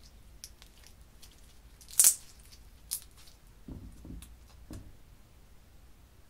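Small plastic slime containers being handled, with light clicks and one loud sharp crackling snap about two seconds in. Soft low squishing follows around four seconds in as glitter slime is pressed into a tray of white foamy slime.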